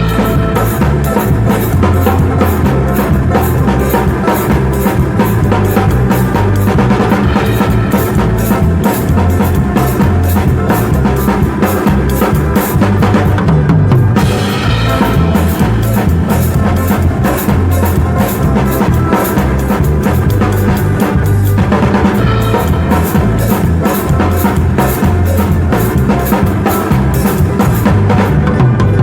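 Live band playing at a sound check: a drum kit with bass drum, snare and cymbals keeping a steady groove over bass and guitar.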